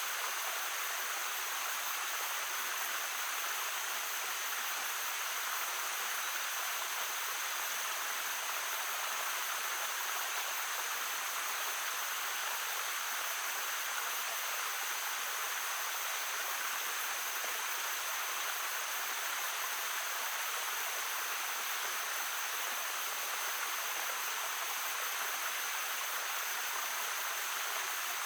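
Shallow stream babbling steadily over stones, an even, unbroken rush of water with a thin steady high note running above it.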